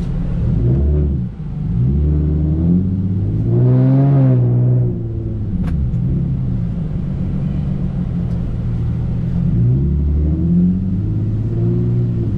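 Car engine running and accelerating several times, its pitch rising and settling back with each pull.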